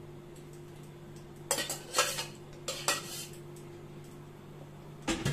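Steel mixer jar and cookware clinking and clattering against the pan in a few short bursts, about a second and a half in, again near three seconds, and once more near the end, over a faint steady hum.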